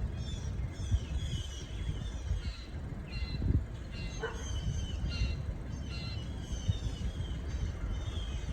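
Several birds chirping, with short falling calls overlapping throughout, over a steady low rumble; a single short, lower-pitched call sounds about four seconds in.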